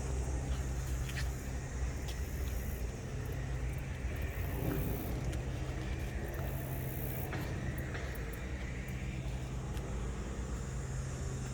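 Steady low rumble of distant road traffic, with a faint steady high insect hum and a few light clicks.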